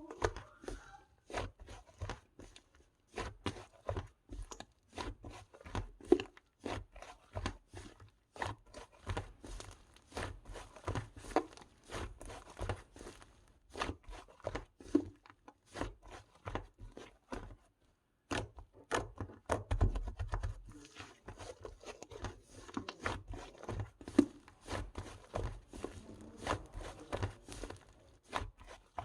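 Slime being squeezed, poked and stretched by hand, giving a steady run of sharp, wet crackling pops and clicks, several a second, with short pauses.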